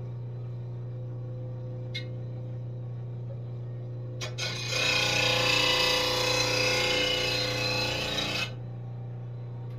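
Mower blade ground on an RBG-712 blade sharpener for about four seconds, starting about halfway in, taking metal off the heavy side of the blade to balance it. A steady hum runs underneath, with a couple of light clicks before the grinding.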